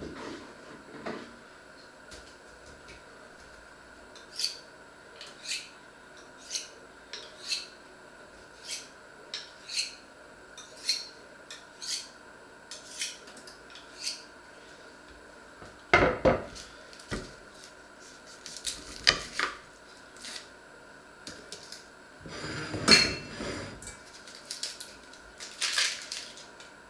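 Kitchen knife drawn along a honing steel: a run of short, high metallic swipes about once a second. After that, several louder clattering knocks as a steel cooking pot is handled and set down.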